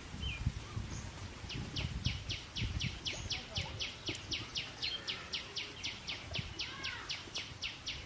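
A small animal's high chirp repeated evenly, about four times a second, starting about a second and a half in, over a low, uneven outdoor rumble.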